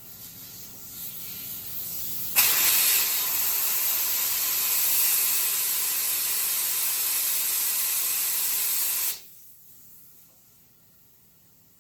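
A steady hiss of gas escaping under pressure. It starts softly and rises, jumps to full strength about two seconds in, holds evenly for about seven seconds, then cuts off sharply.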